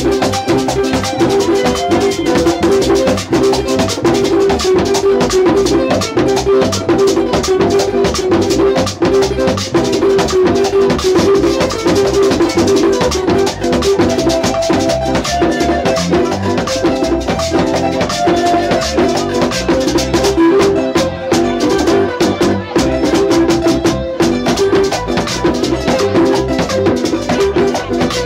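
Latin dance music with drums and a steady beat.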